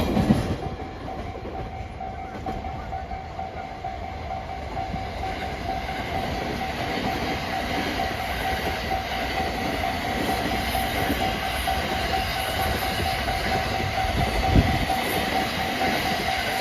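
A long train of freight container flat wagons rolling past over the rails, wheels clicking over the joints, with a sharp louder knock about fourteen seconds in. A level-crossing warning bell rings steadily over it.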